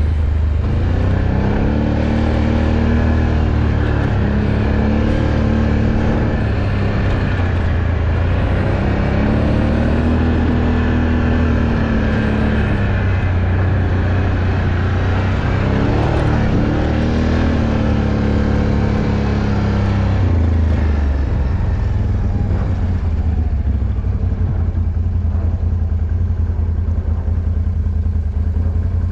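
Off-road vehicle's engine revving up and down in repeated surges while mudding, then settling to a steadier run about twenty seconds in.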